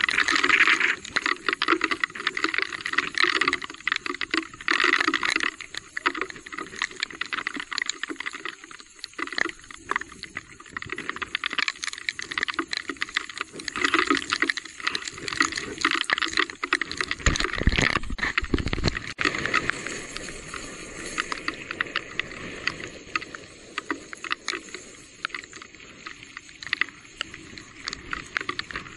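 Electric mountain bike being ridden over a wet, rough trail in the rain: the bike rattles and clatters and the tyres splash without a break, with a brief deep rumble about eighteen seconds in.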